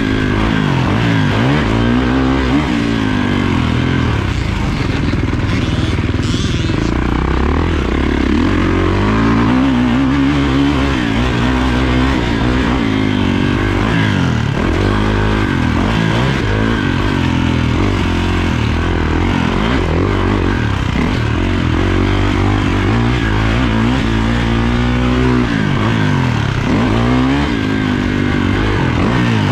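Kawasaki motocross bike's engine, heard on board, revving up and dropping back over and over as the rider accelerates, shifts and rolls off around the track.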